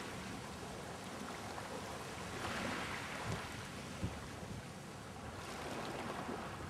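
Wind and water by the sea: a steady hiss that swells for about a second a little before halfway.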